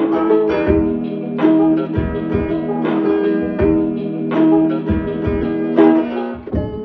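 Background music: a plucked guitar tune over a steady beat.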